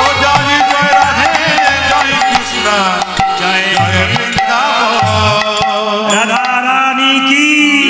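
Bengali kirtan music: a hand drum beats under a wavering melody line.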